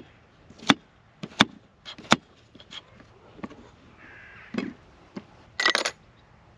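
Kitchen knife chopping cucumber on a wooden cutting board: a run of sharp knocks at uneven spacing, with a bird calling once about four seconds in.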